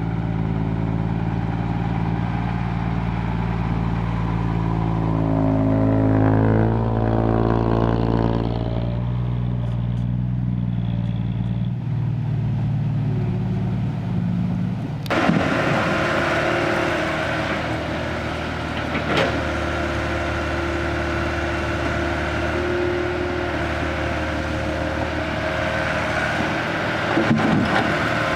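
Diesel engine of a loaded Isuzu six-wheel dump truck pulling away, its revs rising and falling about six to nine seconds in. About halfway through it cuts suddenly to a Caterpillar excavator's engine and hydraulics working as it loads soil into a dump truck.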